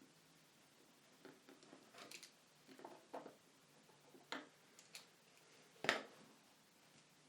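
Faint small clicks and taps from handling components and a connector on a circuit board, with a sharper click about six seconds in.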